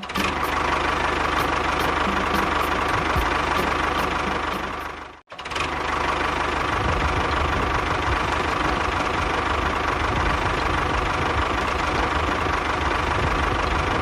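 A small motor running steadily with a constant whine. It cuts out abruptly for an instant about five seconds in, then runs on with more low rumble.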